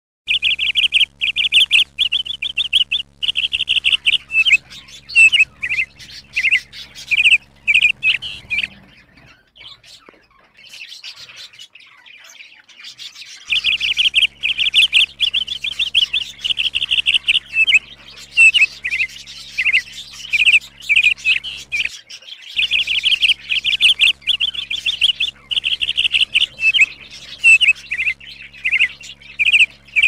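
Budgerigars chirping and chattering in rapid runs of short, high chirps, with a quieter stretch about a third of the way in. A faint low hum lies under the louder parts.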